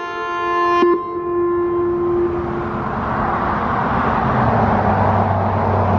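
Federal Signal Modulator electronic siren sounding the last notes of its all-clear chimes, which signal the end of the test. A chord of steady electronic tones changes once about a second in, then cuts off, leaving one low tone to fade out by about two seconds. Then the even noise of a passing car rises, with a low engine hum near the end.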